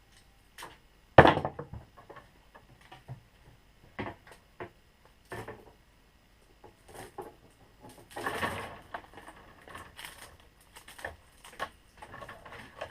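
A TNT Tooling WSA wire stripper and 10-gauge solid copper wire being handled and worked, giving scattered clicks and metal knocks. There is a loud knock about a second in, and a longer scraping rasp a little past eight seconds in as the wire is drawn through the stripper.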